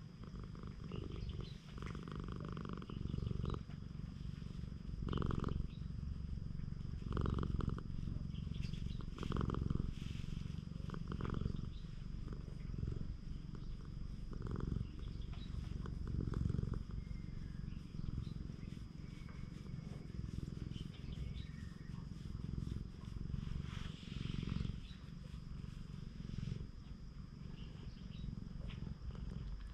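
Domestic cat purring up close while being stroked, a continuous low rumble that swells and eases in a slow rhythm, with soft rustling of a hand on its fur.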